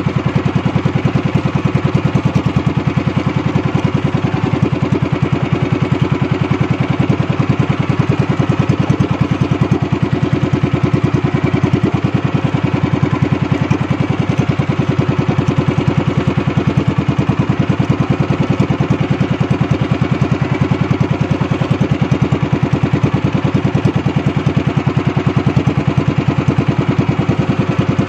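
Small engine of a motorized outrigger boat running steadily under way, a fast, even pulsing beat.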